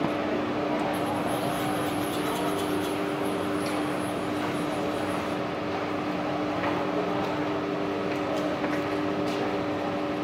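SMC-5 CNC milling machine running with a steady hum and a constant tone, plus a faint high hiss over roughly the first half.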